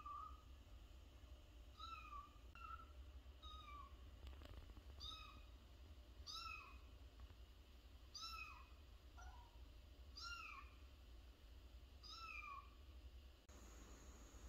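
Kitten meowing over and over: short, high, thin calls, each rising and falling, about one a second and faint.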